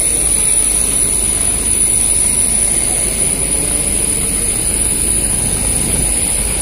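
Jet aircraft noise on an airport apron: a steady rumble with a high, even whine over it.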